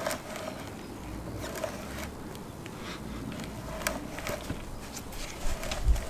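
A hand brace with an auger bit being cranked round to bore into wood: irregular scraping and creaking of the bit cutting, with scattered small clicks.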